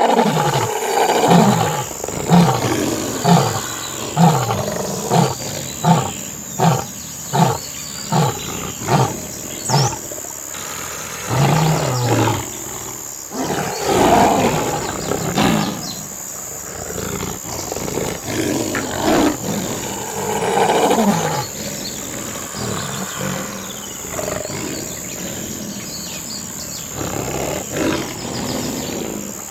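Lions fighting: a run of short, falling grunts about one and a half a second for the first ten seconds, then longer, irregular roars and growls.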